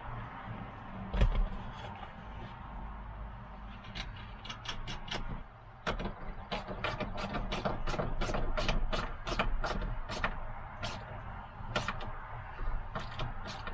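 Hand ratchet clicking as the nuts are run down onto the tow mirror's metal mounting studs: runs of short, evenly spaced clicks, about three a second through the middle, with a sharper knock about a second in.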